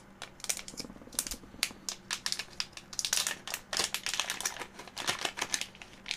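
A crinkly plastic bag being handled and opened in the hands: a quick, irregular run of sharp crackles, busiest in the second half.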